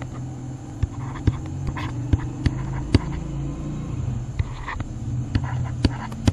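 Steady low hum with scattered sharp clicks, about two a second at irregular intervals. These are the taps and clicks of writing digits by hand on a computer screen.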